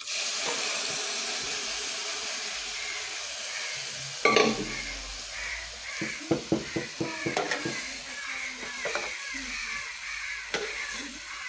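Rice frying in hot oil in a steel pot, a steady sizzle that starts suddenly as the contents of a pressure cooker are tipped in. From about four seconds in, a metal spoon scrapes and clinks against the pot as the rice is stirred.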